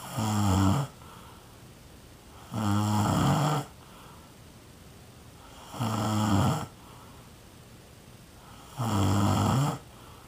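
A person snoring: four loud, low-pitched snores, each about a second long, coming roughly every three seconds.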